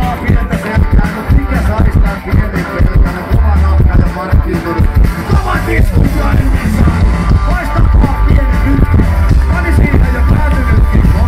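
Punk rock band playing live, with electric guitar, drums and a male singer, recorded loud on a mobile phone's microphone.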